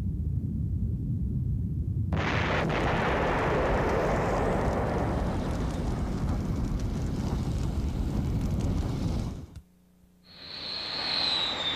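Low rumble, then about two seconds in a sudden blast opens into a long rolling explosion lasting some seven seconds as a Phoenix missile strikes its target, then cuts off. Near the end the high whine of an F-14 Tomcat's jet engines fades in.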